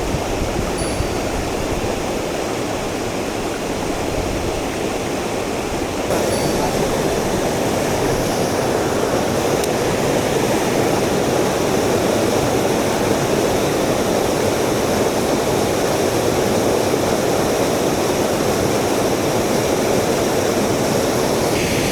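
Mountain stream water rushing steadily over rocks, a constant loud rush that grows a little louder about six seconds in.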